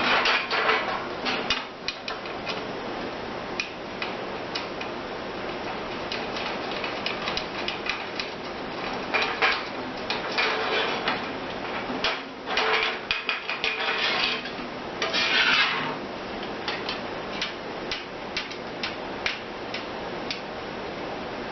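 Sheet-metal engine parts being handled and fitted together: irregular light metal clinks and taps, with a few longer rattling scrapes of thin metal against metal.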